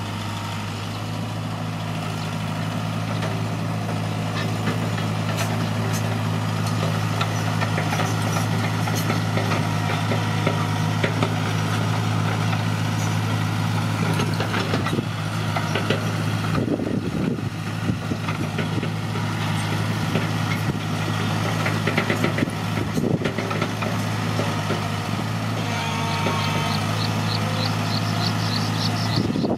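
Heavy diesel construction machine engine running steadily, with scattered clanks and knocks.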